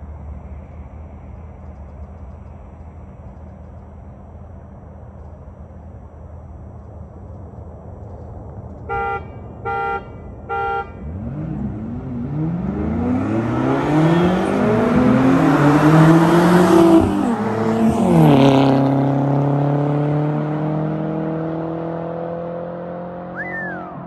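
A car horn gives three short, evenly spaced beeps as the start signal, then two straight-piped Audi A4s, a B5 1.8T four-cylinder and a B6 with a swapped 2.7T twin-turbo V6, launch and accelerate hard through the gears. Their exhausts grow louder as they approach, drop in pitch as they pass, and fade as they pull away.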